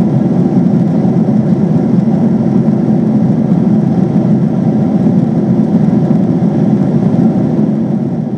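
Cabin noise of a Boeing 767-400ER in cruise: the steady, even rush of engines and airflow heard at a window seat over the wing.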